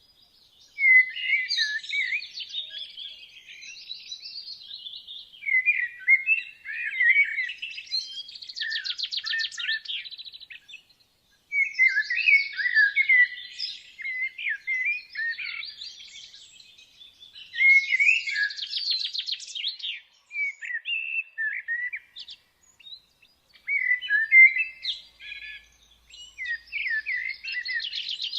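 Woodland birdsong: a songbird singing repeated phrases a few seconds long, one starting about every five to six seconds. Each phrase is made of quick, varied high notes, and several hold a fast, even trill.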